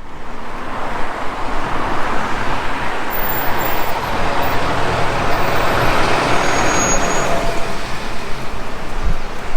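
Road traffic noise: a steady rush of passing motor vehicles that swells a little through the middle, with a brief low thump near the end.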